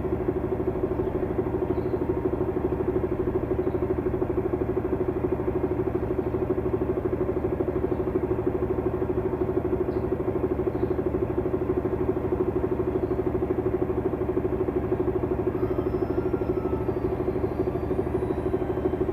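Mueller Energy 8 kg automatic washing machine running its intermediate spin: a steady motor hum with an even, fast whir and no change in pace.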